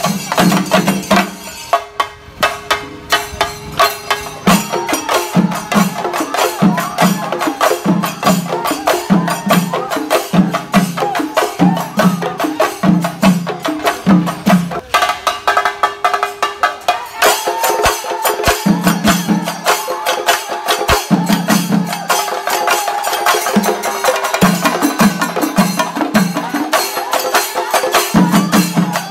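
Shinkari melam percussion: chenda drums beaten with sticks, together with hand cymbals, playing a fast, driving rhythm. The low drum strokes drop out briefly twice, about two seconds in and again about halfway through.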